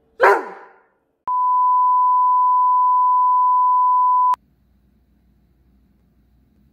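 A single loud dog bark that dies away quickly, then a steady 1 kHz test tone, the beep that goes with TV colour bars, held for about three seconds and cut off sharply. After it comes faint room tone.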